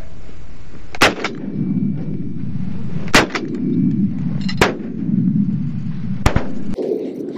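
Shotguns firing at teal: four loud blasts about one and a half to two seconds apart, over a steady low rushing noise.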